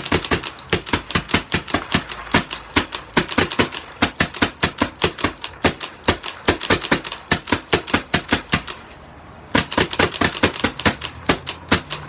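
Two Autococker paintball markers, a WGP Prostock and a Freeflow Millennium, fired rapidly together in a fast stream of sharp pneumatic pops, several a second. The shots stop for under a second about nine seconds in, then start again.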